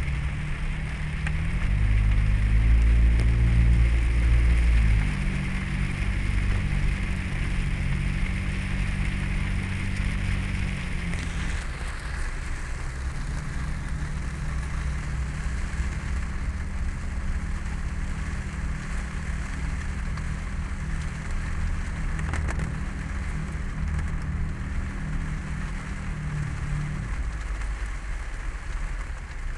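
Car driving slowly through floodwater: steady engine hum with a constant hiss of water spray from the tyres. The engine grows louder for a few seconds near the start, then settles back.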